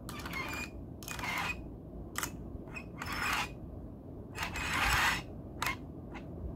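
A string of short scrapes and clicks from plastic toy train engines being handled and shifted on the floor, one every second or so, the longest near the five-second mark.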